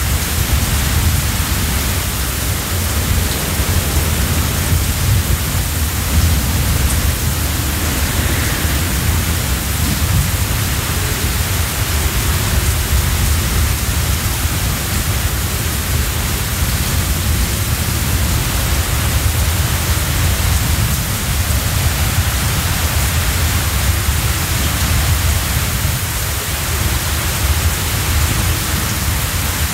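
Typhoon wind: a loud, steady rush of storm wind with a deep rumble beneath it, holding at much the same strength throughout.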